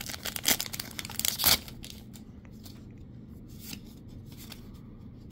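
Foil Magic: The Gathering booster pack wrapper being torn open and crinkling for about a second and a half, ending in one loud rip. Then comes the softer swish of the cards being slid out and handled a few times.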